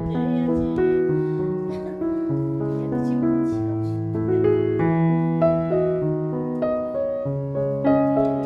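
Background piano music: a melody of single notes moving in steps over a bass line that changes about once a second.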